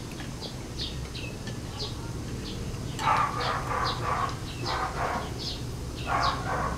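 A bird chirping repeatedly in the background, short high chirps about twice a second, over a steady low hum. Louder stretches of mid-pitched sound come in from about halfway through.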